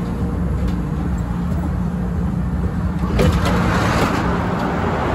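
CTA 2600-series rapid-transit car standing at a platform with a steady low hum from its equipment; about three seconds in there is a knock and the sound turns suddenly louder and hissier as the doors open onto the platform.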